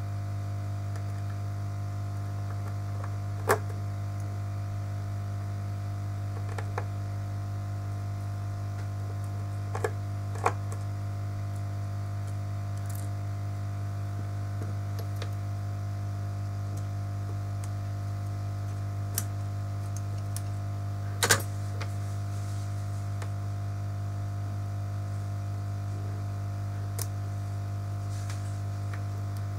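A steady electrical mains hum, with a few sharp light clicks and taps scattered through it, like small metal tools touching a phone on a repair bench.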